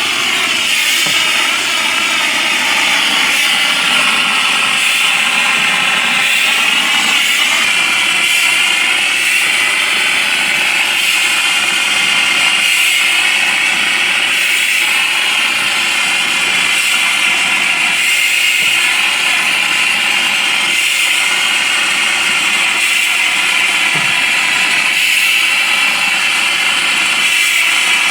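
Tornado AS-5 shotcrete machine spraying vermiculite plaster: a steady, loud hiss of compressed air at the nozzle over the running machine, with a constant whine.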